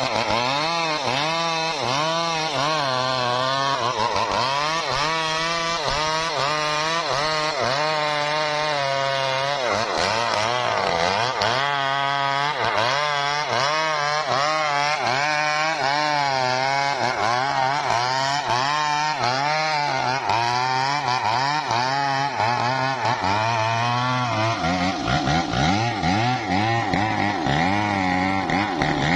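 Gasoline chainsaw running continuously while cutting wood, its pitch rising and falling over and over. About 25 seconds in the pitch shifts higher.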